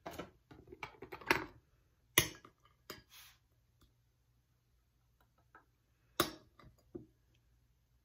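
Metal spoon clicking and scraping against a rubber West Paw Tux treat toy while food is packed into it: scattered light taps, with two sharper knocks about two and six seconds in.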